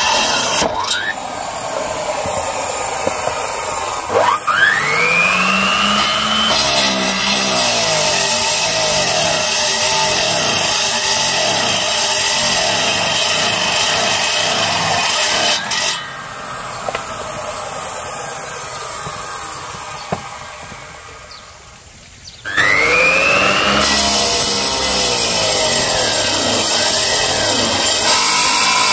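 Power saw cutting wood. Its motor speeds up with a rising whine about four seconds in and runs steadily. It drops to a lower, quieter level around sixteen seconds in, then speeds up again with a second rising whine about twenty-two seconds in.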